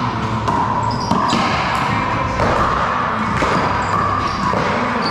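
One-wall racquetball rally in an echoing gym hall: a rubber ball smacks against the wall and off racquets several times, with sneakers squeaking on the court floor.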